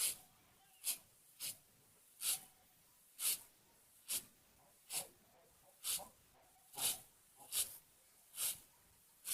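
An animal's short, breathy puffs, about a dozen of them, coming roughly once a second.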